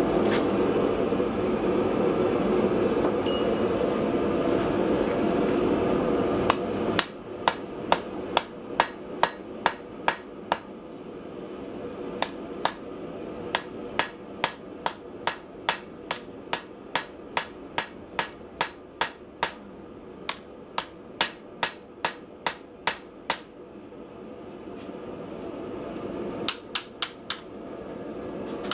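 Hand hammer striking red-hot cable Damascus steel on an anvil, drawing out the blade: sharp blows about two a second in several runs with short pauses between them. For about the first seven seconds, before the blows begin, a steady rushing roar that then drops away.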